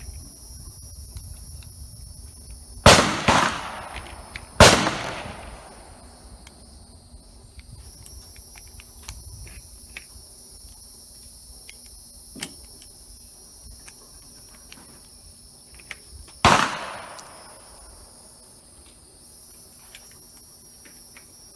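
Loud gunshots on an outdoor firing range, each ringing out with an echoing tail: two about 3 and 5 seconds in, another about 17 seconds in. Between them come faint clicks of 9mm cartridges being pressed into a Glock 17 magazine, over steady high insect buzzing.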